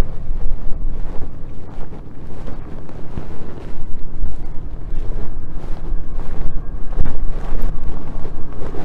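Wind buffeting the microphone, with the low, steady idle of a GMC 1500 pickup's engine underneath.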